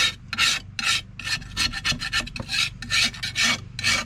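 A brush scrubbing paint-stripper-softened spray paint off a steel tool head in rapid back-and-forth strokes, about three a second. The strokes quicken in the second half.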